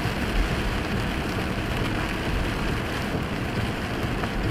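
Car driving on a wet road in the rain at about 30 mph, heard from inside the cabin: a steady hiss of tyres on wet pavement and rain on the windshield.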